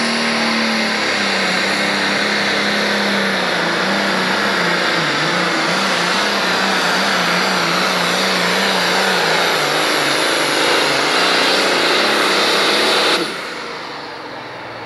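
Modified John Deere 4955 pro stock pulling tractor's turbocharged diesel engine at full throttle, hauling the weight sled, with a high whine held steady over a wavering engine note. About 13 seconds in the engine sound drops off sharply to a much quieter running.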